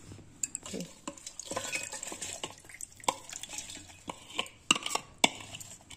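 Soaked nuts, rose petals and spices being scraped with a spoon out of a glass bowl into a steel mixer-grinder jar: wet sliding and scraping with irregular sharp clinks of the spoon on glass and steel, the loudest near the end.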